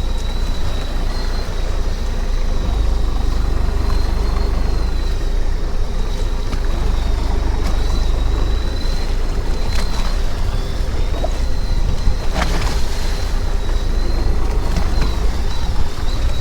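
A fishing boat's engine running steadily with a deep rumble, under wind and water noise, with a thin steady high whine throughout. Short sharp splashes or knocks come through about ten, twelve and fifteen seconds in.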